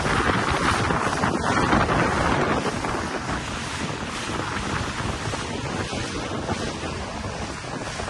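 Small boat under way with its 30 hp Yamaha outboard running, wind buffeting the microphone and water rushing past the hull. Louder for the first few seconds, then a little quieter and steady.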